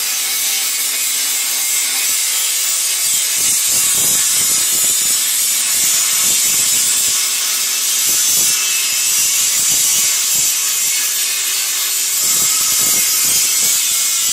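Handheld angle grinder grinding the edge of a curved steel fodder-cutter blade: a steady, high-pitched grinding hiss.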